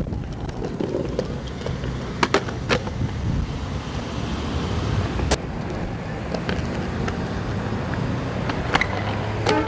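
Skateboard wheels rolling on a concrete sidewalk, a steady low rumble, broken by several sharp clacks of the board striking the pavement during tricks and landings.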